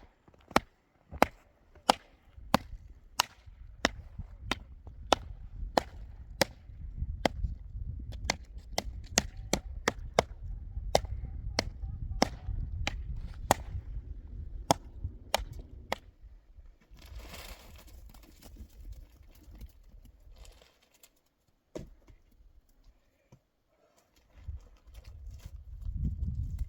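Repeated sharp strikes on wood, about two a second for some fifteen seconds, then only a few scattered blows.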